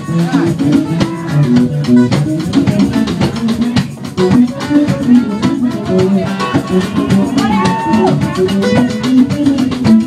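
Live band playing an instrumental passage: electric guitar over a walking bass line and drums, with the guitar bending a note near the end.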